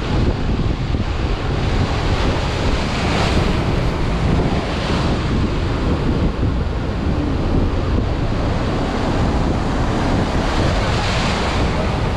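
Wind rumbling on the microphone over the steady rush of breaking surf and foaming water along a small wooden boat's hull, with a few louder surges of hissing water.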